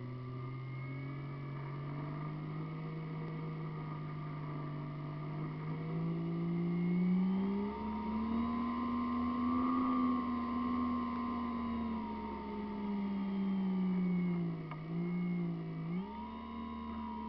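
Model airplane motor and propeller heard from the onboard camera, a steady hum whose pitch rises as the throttle is opened about six seconds in. It dips briefly near the end and then climbs again.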